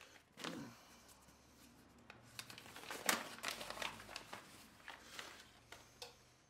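Paper-and-plastic style crinkling and rustling of an envelope of parts handled by hand, with small clicks and taps, as a new valve stem oil seal is taken out; the handling is busiest and loudest a little past the middle.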